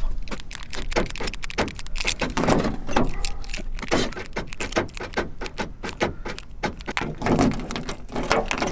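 A key ring with a remote fob jangling in the hand as a key is worked into a Ford's driver-door lock: many small metallic clicks and rattles.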